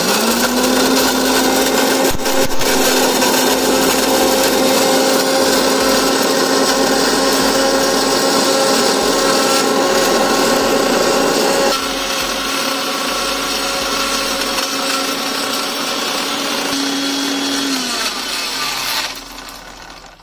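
Billion mixer grinder motor running at speed with a stainless steel jar full of Pulse hard candies, a steady motor whine under the loud rattling and grinding of the candies. It grows a little quieter about twelve seconds in, and near the end it is switched off and spins down with a falling pitch.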